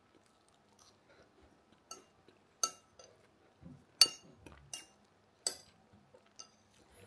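Metal spoon clinking and scraping on a ceramic plate while scooping up pieces of cake: a handful of short, sharp clinks, the loudest about four seconds in.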